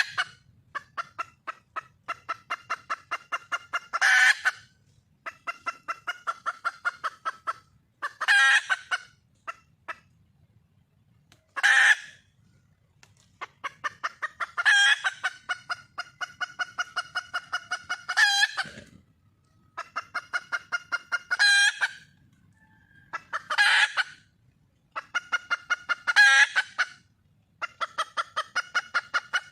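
Red junglefowl hen calling for a mate. Runs of rapid, evenly spaced clucks, about three a second, are broken every few seconds by a louder, short squawk.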